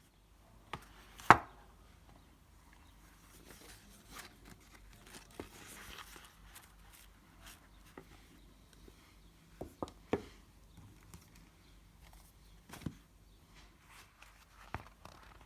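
Handling noise: a few sharp taps and knocks, the loudest about a second in and a cluster of three near the middle, with soft rustling in between, as of books and papers being handled.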